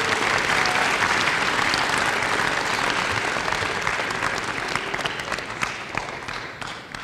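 Audience applauding, then dying away over the last few seconds into a few scattered separate claps.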